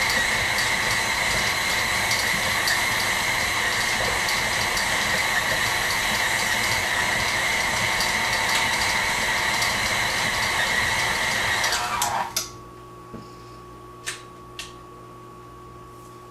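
KitchenAid Artisan stand mixer running steadily at about speed 5, its motor whining as the scraper-edged beater works cookie dough in a glass bowl. About twelve seconds in the motor is switched off and winds down with falling pitch, followed by a few light clicks as the tilt head is released and raised.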